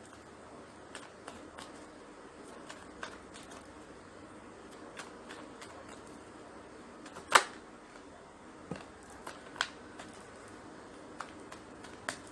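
Tarot cards being shuffled hand over hand, a scatter of soft card clicks and flicks, with one much sharper snap about seven seconds in and a few smaller ones later.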